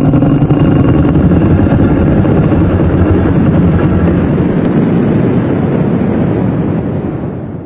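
A long, low, rough dinosaur roar sound effect for a Spinosaurus, held steadily and then fading out near the end.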